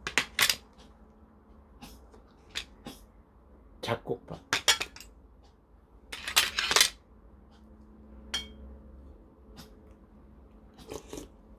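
Metal spoon and tableware clinking and knocking against ceramic bowls and a plate: scattered short clinks throughout, with a louder run of clatter about six seconds in and a single ringing clink a little after eight seconds.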